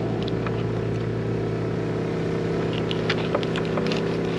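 Steady drone of a motorboat engine running, with light clicks and scrapes of a knife working on a fish fillet in the second half.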